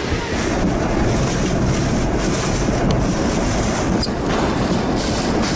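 Storm wind buffeting the microphone over a rough sea with waves, a loud steady rushing noise.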